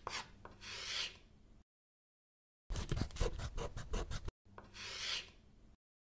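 Scribbling sound effects like a marker drawing on paper, laid under an animated logo being sketched: a longer stroke about a second in, then a quick run of about ten short strokes, then another longer stroke near the end.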